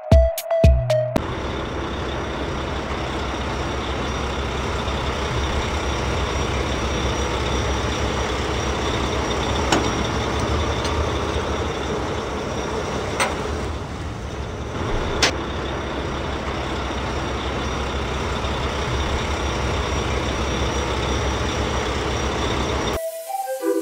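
An engine running steadily, with a few sharp clicks in the middle.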